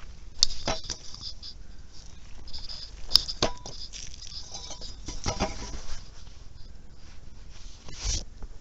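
Rustling of dry tall grass with several sharp knocks and clicks from a long-handled tool and handling of the body camera, ending in a heavy bump near the end.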